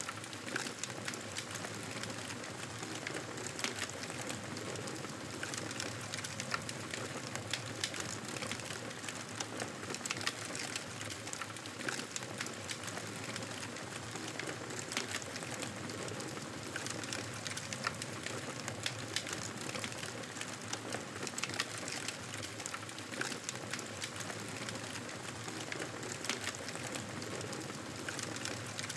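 Campfire burning, with a steady hiss and frequent small crackles and pops all through.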